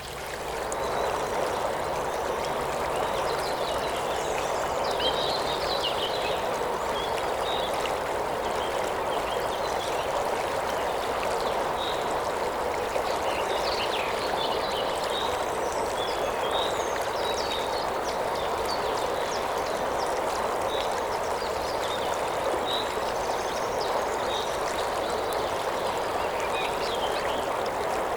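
River water flowing and rushing steadily, fading back in within the first second. Short, high chirps are scattered over the water sound throughout.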